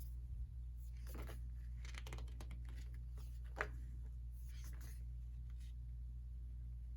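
Faint rustling of paper and cardboard as a K-pop album is handled, with a few light taps and scrapes, the sharpest about three and a half seconds in, over a steady low hum.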